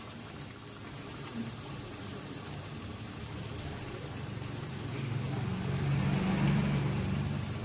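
Battered sandwich deep-frying in hot oil in a kadhai, a steady sizzle of bubbling oil. A low steady hum grows louder in the second half and eases off near the end.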